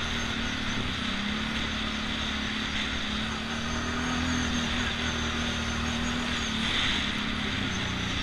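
ATV engine running under way, its pitch dipping about a second in and again near the end and rising in between as the throttle changes, under a steady hiss of wind and tyres on a dirt trail.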